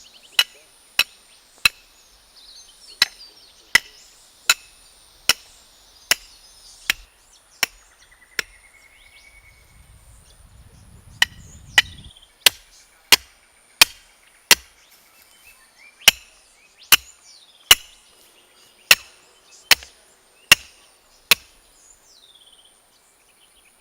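Steady hammer blows, about one every 0.7 s, driving stakes to anchor coir logs on an eroded creek bank. They come in two runs with a pause of a few seconds between them.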